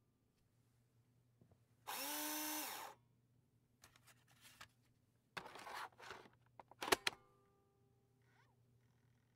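Disk drive handling a disk. Its motor spins up for about a second with a whine that rises, holds and falls, then come scraping, rattling noises and a pair of sharp clicks about seven seconds in.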